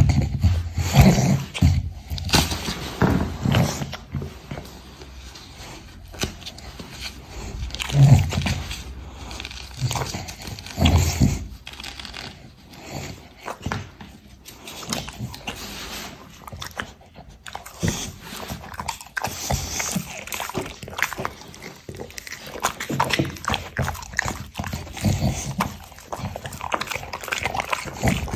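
A dog licking its lips and chewing, with irregular wet smacks and clicks. The louder smacks come near the start and again about eight and eleven seconds in, with quieter licking after that.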